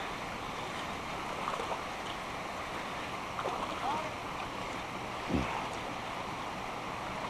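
Steady outdoor hiss of wind and moving water, with a few faint short sounds and a soft low thump about five seconds in.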